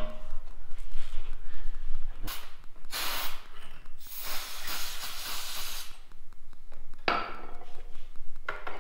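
CRC Brakleen aerosol brake parts cleaner spraying onto a brake caliper bracket to wash off dirt. It hisses in bursts: a short one a little after two seconds in, two long ones from about three to six seconds, and another short one near seven seconds.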